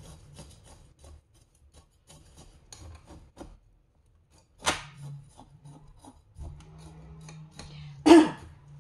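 Coarse granite grit crunching and scraping as gloved hands press and rub it around a potted succulent, with small gritty clicks and two louder scrapes, one about halfway and one near the end.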